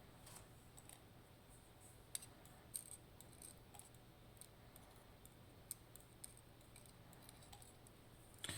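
Sparse, faint light clicks of small metal lock parts being handled: the DOM RN pin tumbler lock's springs being taken out and laid down.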